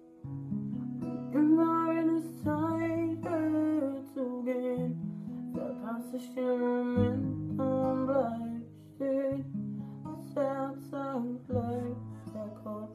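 A man singing while playing chords on a steel-string acoustic guitar. The chords change about every two seconds under a sung melody.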